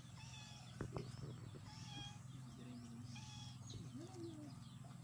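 Faint chirping of small birds in the background, many short high calls repeating, with a single sharp click about a second in.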